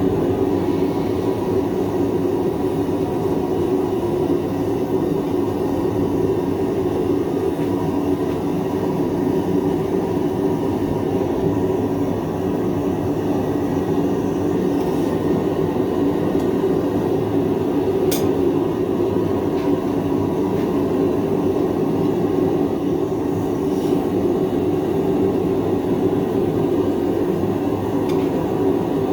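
Blacksmith's forge running with a steady, even roar, its fire blown hard to heat thick steel stock to forging temperature. A single sharp click sounds about two-thirds of the way through.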